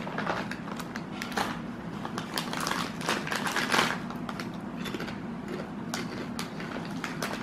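Foil chip bag crinkling and rustling as a hand reaches in for chips, with irregular sharp crackles.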